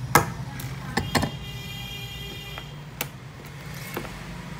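Hand-lever desktop hole punch press punching through a calendar's pages with a sharp clunk just after the start, then two quicker metallic clicks and a metallic ring lasting over a second. A few lighter knocks follow, over a low steady hum.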